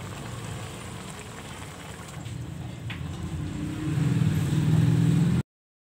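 A low, steady motor-like hum that grows louder about three and a half seconds in, with a single click near the middle, then cuts off suddenly near the end.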